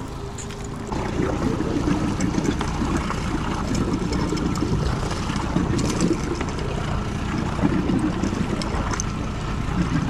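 Suzuki outboard motor running steadily as the boat trolls slowly, with wind on the microphone and water washing past the hull.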